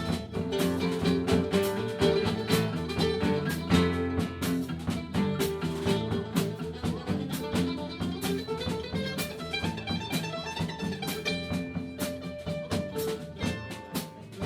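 Live band playing an instrumental passage: guitar over a steady drum beat, with no singing.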